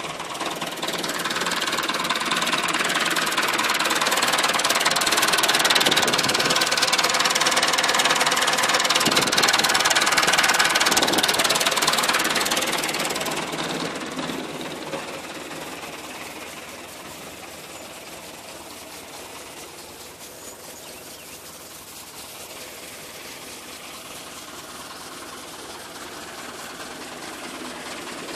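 Tractor engine running steadily during field work, louder for the first dozen seconds and then easing to a lower level.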